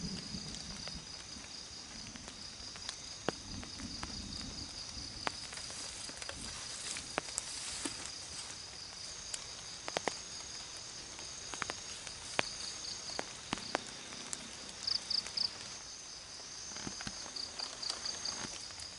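Insects chirring in a steady, high, rapidly pulsing drone, with scattered sharp clicks and snaps from the forest floor every second or two.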